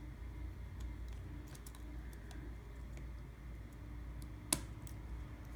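Faint, scattered light clicks and taps of small phone parts and tools being handled while the loudspeaker module is fitted into an iPhone 6, with one sharper click about four and a half seconds in. A low steady hum sits underneath.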